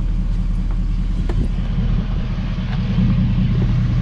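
Ford 6.7 L Power Stroke V8 turbo-diesel of an emissions-deleted 2012 F250 idling steadily, freshly filled with new oil and left running to build oil pressure.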